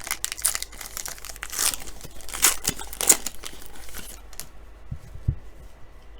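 Trading card pack wrapper being torn open and crinkled by hand, a rapid run of crackling and tearing that dies down after about four seconds. Two soft low thumps follow near the end.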